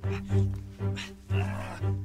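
Tense film-score music: a low droning tone that swells in pulses about twice a second.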